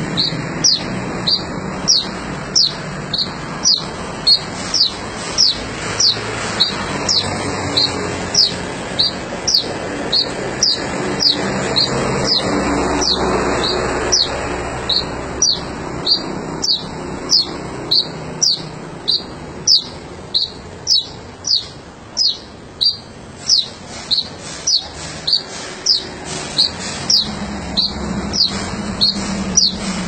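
A caged sogon songbird calling persistently, as the bird-keeping term gacor means: one short, high chirp after another at about two a second, keeping an even pace throughout.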